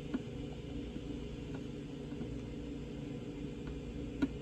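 Steady low background hum with a few faint, light clicks.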